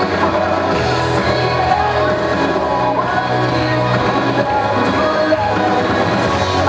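A recorded pop song with sung vocals, playing loud and steady as the music for a children's dance.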